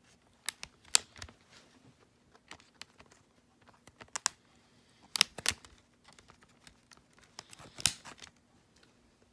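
Plastic DVD case and disc clicking and rattling as fingers work a disc loose from the case's centre hub: irregular sharp clicks, the loudest about a second in, a pair around five seconds in and one near eight seconds.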